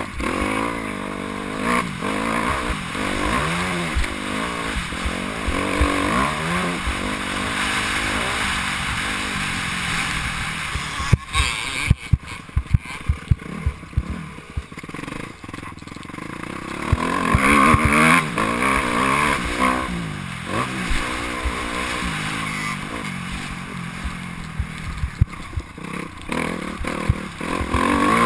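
Motocross bike engine revving up and down as the bike rides a dirt track, heard from the rider's helmet. A run of sharp knocks and clatter comes in around the middle, then the engine is held at high revs for a few seconds.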